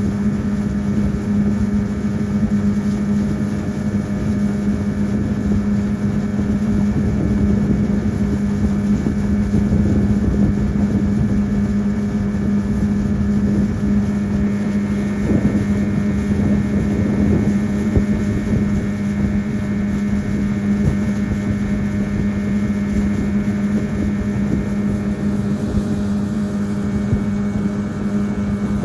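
Motorboat engine running at a steady speed: an unchanging droning hum over a rushing noise.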